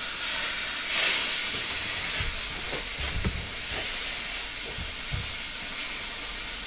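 Venison sizzling as it sears in a hot stainless steel pan: a steady hiss that swells about a second in, with a few soft knocks mixed in.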